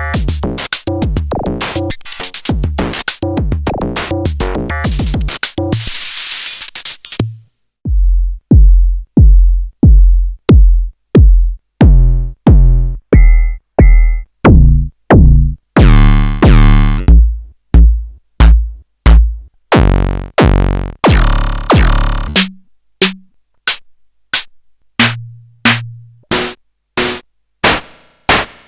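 Erica Synths Perkons Voice eurorack drum module. First comes a dense sequenced electronic percussion pattern, which stops about seven seconds in. Then single drum hits repeat just under twice a second, the sound changing every few hits as the factory presets are stepped through: deep kicks falling in pitch, then brighter tonal and noisy hits.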